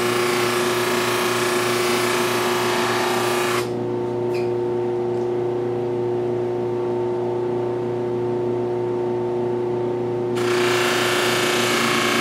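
Baldor bench buffer motor running with a steady hum, while a stainless knife blade is pressed against the spinning cloth buffing wheel, making a dense hiss. The blade comes off the wheel about three and a half seconds in, leaving only the motor hum, and goes back on about ten seconds in.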